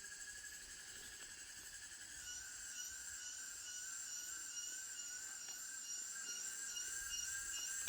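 Jungle insects droning in chorus: a steady, high-pitched whine in several layered pitches that starts to waver gently about two seconds in.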